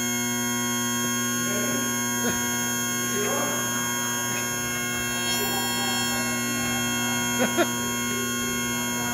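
Bagpipe drones sounding one steady, unchanging chord with no tune played over it yet. A few brief voices come in over the drone, and two sharp clicks sound close together near the end.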